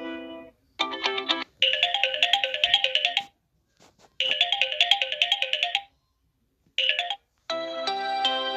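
Samsung Galaxy S9 ringtones played in short previews, each cut off abruptly with silent gaps between. One tune fades out about half a second in, several snippets of quick, bright notes follow, and a fuller tune starts near the end.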